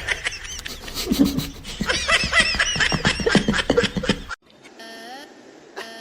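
A person laughing hard in quick, high-pitched bursts. It cuts off abruptly about four seconds in, and a quieter stretch with faint rising tones follows.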